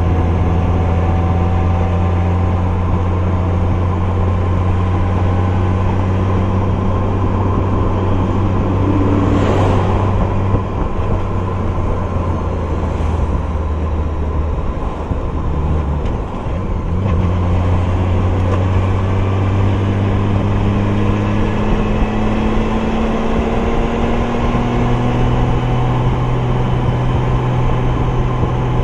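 Honda Gold Wing GL1800 trike's flat-six engine running at road speed under steady wind and road rush. The engine note drops away for several seconds around the middle, then comes back and rises steadily in pitch as the trike speeds up, with a brief whoosh about ten seconds in.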